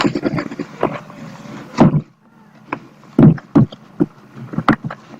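Camcorder box and packaging being opened and handled: a rustle of packing material, then several sharp knocks and taps as the contents are moved.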